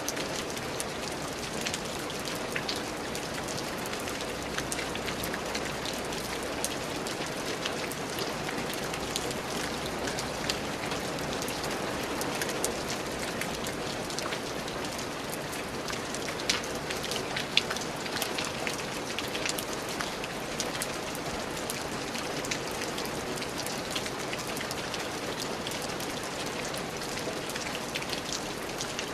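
Steady rain falling on a surface, a continuous patter with many distinct drop impacts and a few louder drips.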